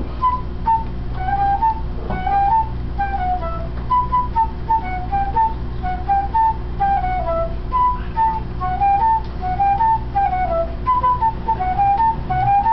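An 1842 Viennese flute playing a melody of short, quick notes in repeated phrases that rise and fall, over a steady low hum.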